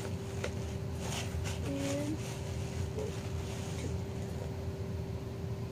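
Steady low background hum with a constant faint tone, with a few faint clicks and taps as bowls are handled.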